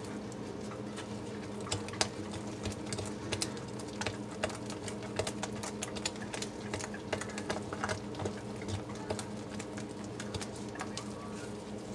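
Silicone spatula stirring and scraping thick hot process soap batter against a plastic bowl: quick, irregular clicks and squelches, several a second, over a steady low hum.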